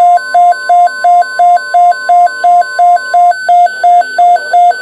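Weather radio receiver's alert alarm, sounding loudly as it is set off by an incoming alert. Two tones alternate low-high about three times a second. Beneath it for the first three seconds or so, the station's steady 1050 Hz warning alarm tone continues faintly and then stops.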